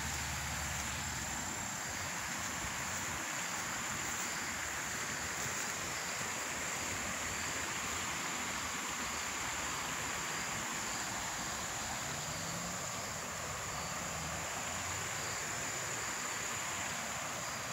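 Steady outdoor rushing hiss, like wind on the microphone, with a thin, faint high-pitched tone above it.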